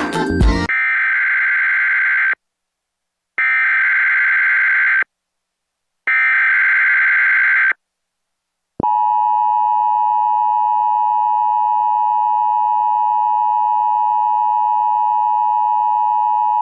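Emergency Alert System SAME header sent three times as bursts of screeching data tones, each about a second and a half long with short gaps between them, then a steady single-pitch attention tone of about eight seconds. The sequence opens a Tornado Watch alert.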